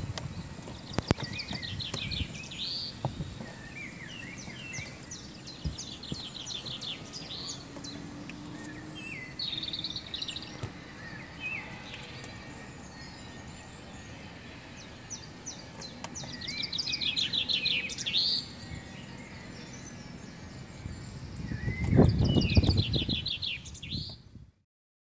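Songbirds singing: short, fast trilled phrases repeated every few seconds over a steady outdoor background hiss. A low rumble swells near the end, then the sound cuts off.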